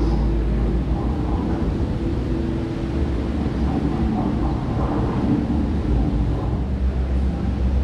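Steady low rumble with a faint hum through it: the background drone of a large indoor exhibition hall.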